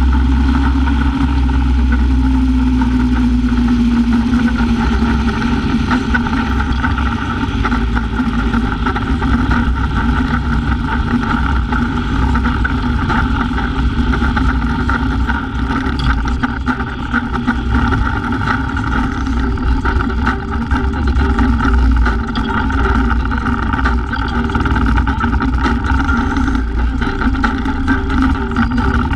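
Motorcycle cruising at highway speed: a steady engine drone under a constant rush of wind and road noise, the engine note rising slightly a few seconds in.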